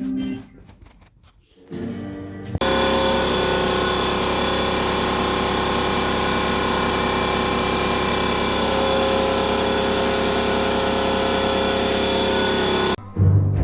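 Background music, then a steady machine noise, like a power tool running, that starts abruptly about two and a half seconds in, holds at one level and cuts off sharply near the end.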